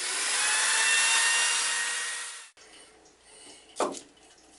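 Biscuit joiner running and cutting a slot in a wooden board, a whining motor over dense cutting noise that stops abruptly about halfway through. A single sharp knock follows near the end.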